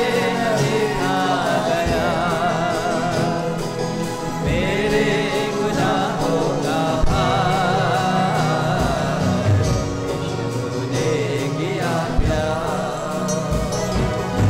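Hindi Christian worship song: sung vocals with marked vibrato over sustained instrumental accompaniment, with occasional beat strokes.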